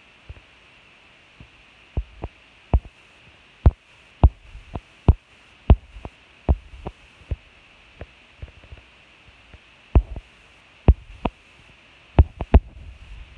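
A string of about twenty sharp, irregular knocks or taps starting about two seconds in, over a steady hiss.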